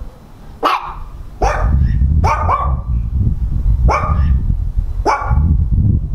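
A dog barking: six short, sharp barks at uneven intervals, two of them in quick succession near the middle.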